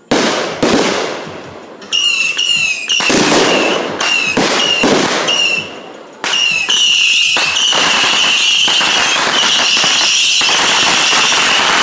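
Consumer fireworks going off: two sharp blasts, then a rapid run of reports with a steady high whistle over them, which from about seven seconds in merges into a continuous dense crackling barrage, the whistle still running through it.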